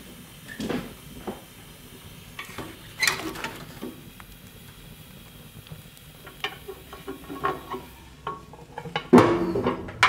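Irregular metallic clinks, scrapes and knocks of a wood stove being tended with a poker at its open door, with the loudest cluster of knocks near the end.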